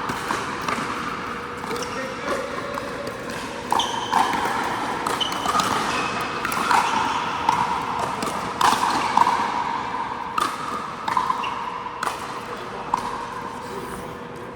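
Pickleball paddles striking the plastic ball: sharp pops at irregular intervals of a second or two, echoing in a large indoor hall, with a few short high squeaks in between.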